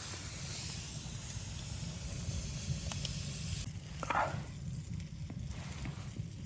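A steady high hiss over a low, fluctuating rumble. The hiss cuts off suddenly a little past halfway, and a short squeak-like sound follows.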